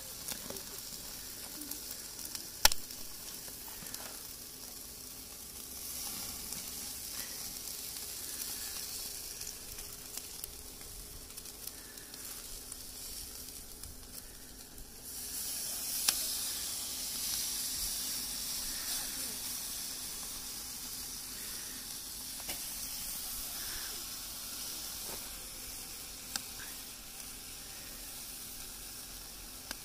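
Food sizzling on a grill: a steady hiss that grows louder about halfway through. A few sharp clicks sound over it, the loudest about three seconds in.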